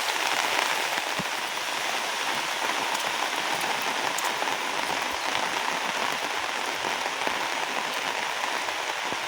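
Heavy rain falling steadily without a break, a dense even patter of drops.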